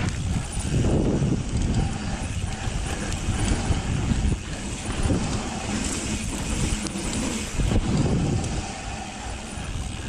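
Mountain bike descending a dirt trail: wind buffeting the microphone over the rumble and rattle of tyres on dirt, swelling and fading as the speed changes.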